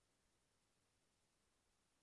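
Near silence: only a faint, steady electronic noise floor.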